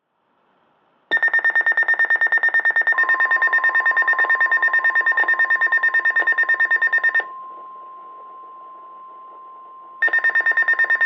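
NOAA Weather Radio warning alert: the steady 1050 Hz alert tone, with a weather-radio receiver's alarm beeping rapidly over it, about nine beeps a second. The beeping stops after about six seconds while the tone holds, and starts again near the end. This is the alarm that comes before a warning, here a flash flood warning.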